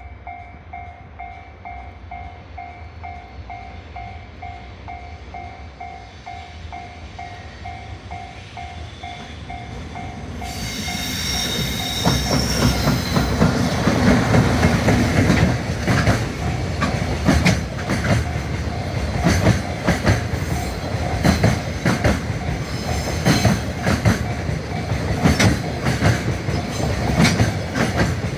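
Japanese level crossing warning bell dinging about three times a second. From about ten seconds in, a freight train comes up and passes close by, its wheels clattering over the rail joints and drowning out the bell.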